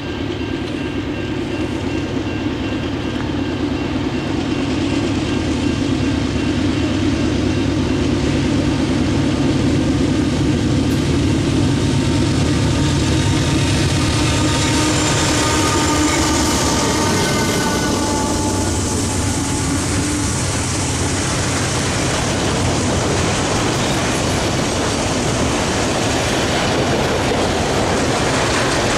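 Norfolk Southern freight train approaching and passing: the diesel locomotives' engine hum grows louder and goes by about halfway through, then the freight cars roll past with steady wheel-on-rail noise and clickety-clack.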